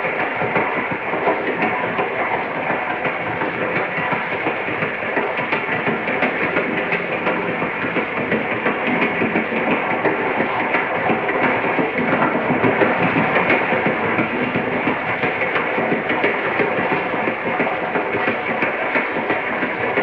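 Moving train: a steady rumble of running railcars with a dense rattle of wheels on the rails, holding at an even level.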